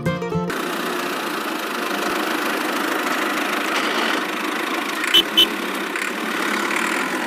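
Small battery-powered electric motor and plastic gearing of a homemade miniature model running steadily. Two short clicks come about five seconds in.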